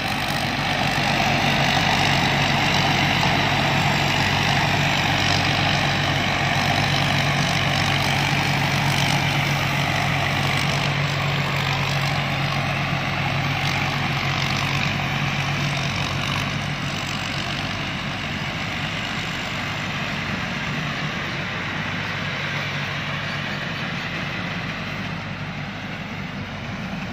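Rice combine harvester's engine running steadily with a low hum and mechanical noise; the hum weakens and the sound eases slightly in the second half.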